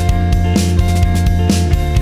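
Background music: a rock track with guitar and a drum beat.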